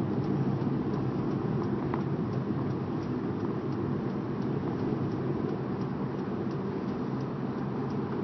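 Steady noise of a car being driven, heard from inside the cabin: engine and road noise, even and low-pitched throughout.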